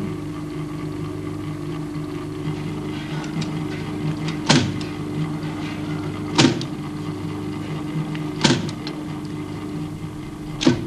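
Electric typewriter keys struck one at a time with a hand-held typing stick: four single sharp clacks about two seconds apart, over a steady hum.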